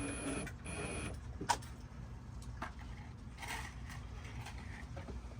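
Power drill motor whining in two short runs within the first second, then scattered clicks and knocks from working the wood panel.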